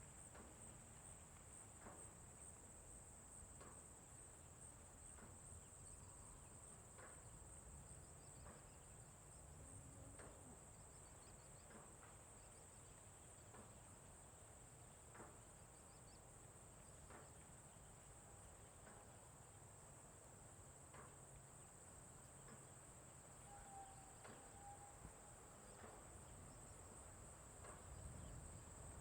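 Faint rural farm ambience: a steady, high-pitched chirring of crickets or other insects over a low rumble, with faint ticks about once a second and one short bird call late on.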